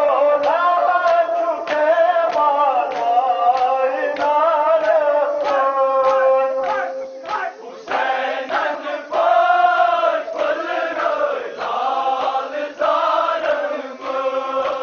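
A group of mourners chanting a nohay, a Shia mourning elegy, together in long held lines, with rhythmic matam (chest-beating) slaps keeping a steady beat of about two strokes a second.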